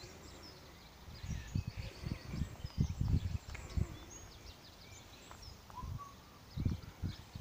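Small birds singing and chirping with many short high calls, over irregular low thuds of footsteps on soil.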